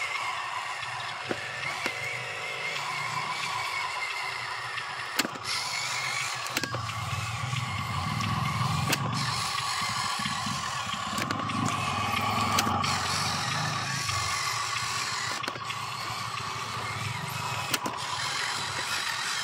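Electric drive motor and gearbox of a Huina RC dump truck whining steadily as it drives over dirt, with a lower rumble swelling in the middle and scattered sharp clicks.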